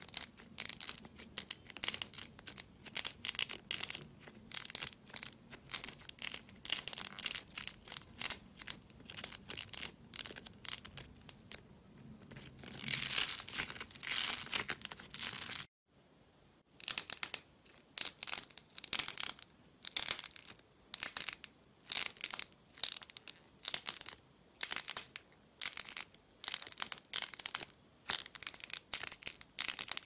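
Crisp crackling and tearing sounds, two or three a second, as fingers squeeze a bead-grid stress-ball toy and press and peel its soft clay coating off the beads. There is a longer, denser crackle shortly before a brief pause a little past halfway.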